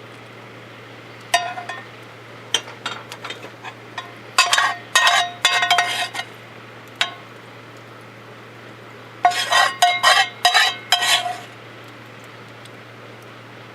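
Metal utensil stirring and clinking against a metal pot or mug: three bursts of quick, ringing clinks over a steady low hum.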